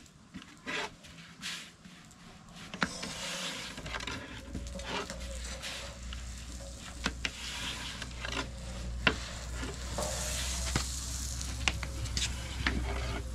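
Steady sizzling with scattered sharp crackles from bread cooking over a wood fire. A low steady hum comes in about two and a half seconds in.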